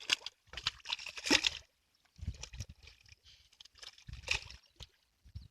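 Muddy pond water sloshing and splashing in irregular bursts as someone wades and gropes through it by hand for fish.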